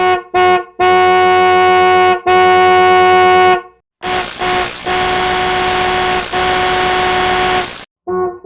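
Tesla Cybertruck horn sounding at one steady pitch: two short honks, then two long ones. The same honk pattern then repeats under a loud hiss of distortion laid over it.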